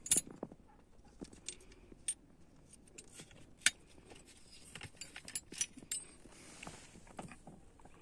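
Scattered sharp metallic clicks and clinks, the loudest a little past halfway, from hex keys and bolts being worked on a BMW E36 door latch striker during its removal.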